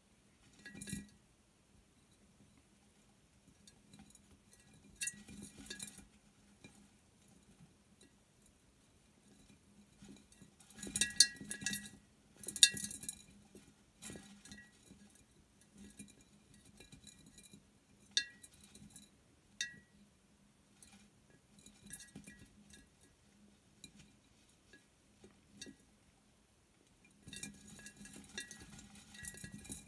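Two mice scuffling inside a glass jar: their claws and bodies scrabble and knock against the glass in irregular bursts, each knock setting the jar ringing with a short clink. The loudest flurry comes about a third of the way in, with another near the end.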